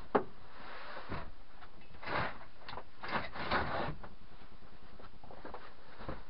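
Foam seat cushions being shifted and the timber pull-out bed base pushed back in to form a sofa. There is one sharp knock just after the start, then a run of scuffs and rubs over the next few seconds.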